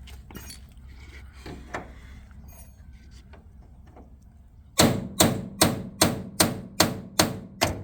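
Hand hammer striking a rivet in a GM bus body panel to drive it out: eight quick, evenly spaced blows, about two and a half a second, starting about five seconds in, each with a short metallic ring from the panel. Before the blows there are only a faint low hum and a few light knocks.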